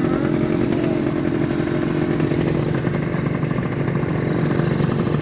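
Two-stroke engine running steadily, holding a constant pitch without revving.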